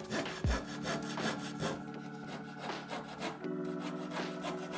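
A small scroll saw cuts a circular wheel rim out of lightweight 9 mm plywood, its blade rasping steadily through the wood.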